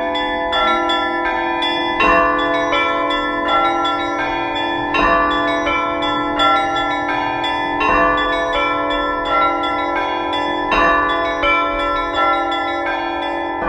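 Orthodox church bells rung together in a full peal (trezvon): small bells chime rapidly in a repeating pattern over the steady hum of the ringing, and a heavier stroke lands about every one and a half seconds.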